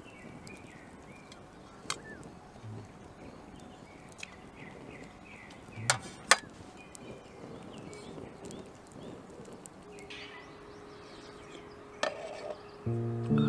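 Outdoor ambience with small birds chirping and a few sharp clicks, the loudest two close together about six seconds in. Background music starts near the end.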